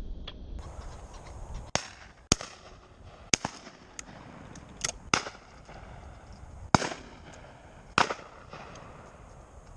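Shotguns firing: about six loud, sharp shots spread over some six seconds, with fainter, more distant shots between them, each followed by a short echo.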